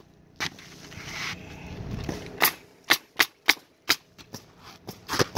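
Pneumatic coil roofing nailer firing nails into asphalt shingles: sharp shots, one about half a second in and a quick run of about five between two and four seconds in, with fainter clicks after.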